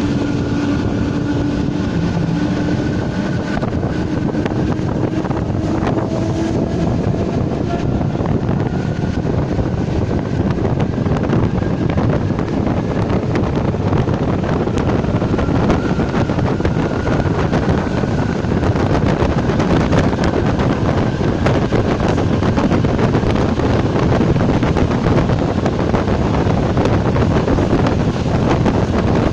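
Czech Railways class 460 electric multiple unit running at speed, a steady loud rushing noise with wind buffeting the microphone. A faint whine rises slightly over the first several seconds, then fades.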